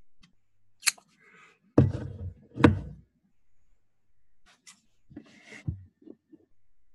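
Scattered clicks and knocks in a small room, the loudest a pair of dull thuds about two seconds in.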